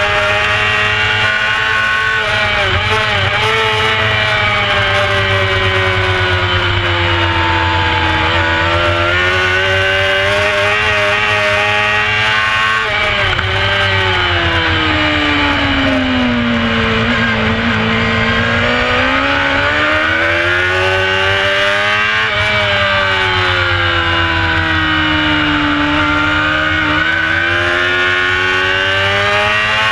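Carburetted 600cc inline-four engine of a Honda CBR600 F4 racing motorcycle under race load, heard from on board with heavy wind rush. Revs fall steadily for a few seconds about halfway through as the bike slows for a corner, then climb again on the exit, with another dip and rise near the end.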